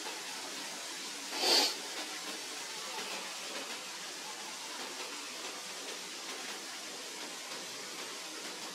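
Steady background hiss, with one short, louder burst of noise about a second and a half in.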